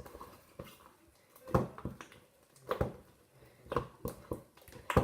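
Sticky slime with added activator being kneaded and squeezed by hand, giving irregular wet squelches and clicks about once a second.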